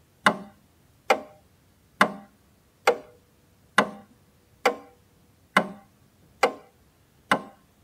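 Clock-like ticking, one sharp tick a little less than once a second, evenly spaced, each dying away quickly.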